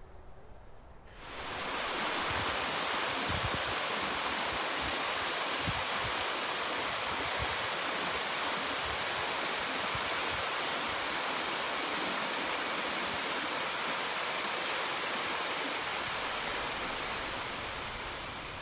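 Waterfall rushing over rock: a steady noise of falling water that comes in suddenly about a second in and fades out near the end.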